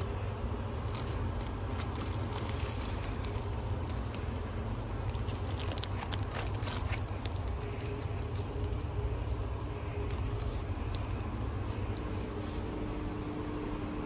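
Plastic bread bags crinkling and rustling as a hand touches and handles the loaves on the shelf, in short crackly bursts over a steady low hum.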